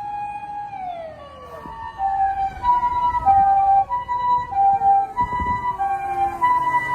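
A steady siren tone that slides down in pitch from about a second in, overlapped from about two seconds on by a Japanese ambulance's two-tone hi-lo siren, alternating a high and a low note about every half second.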